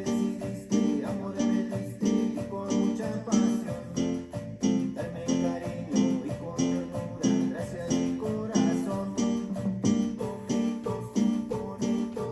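A band rehearsing, guitars playing plucked and strummed chords to a steady beat.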